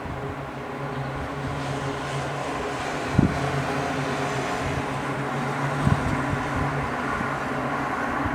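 Airliner's jet engines running at taxi idle, a steady hum with several held tones, with wind buffeting the microphone in brief thumps about three and six seconds in.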